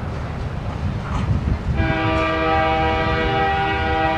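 Low rumble of a train, then a diesel locomotive's multi-chime air horn sounds a steady chord from about two seconds in and is held.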